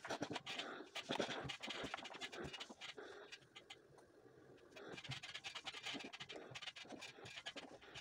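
Steam iron sliding over a cotton sweater on an ironing board, with the rustle and scrape of the fabric being smoothed by hand. It eases off around the middle and picks up again for the last few seconds.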